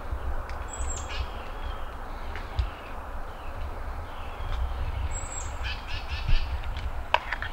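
A bird calling twice, each a high thin note that drops in pitch, over a steady outdoor hiss and a low rumble on the microphone. A few short clicks come near the end.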